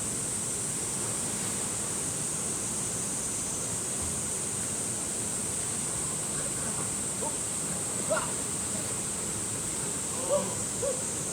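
Mountain stream water rushing steadily, with a few short voices calling faintly in the last few seconds.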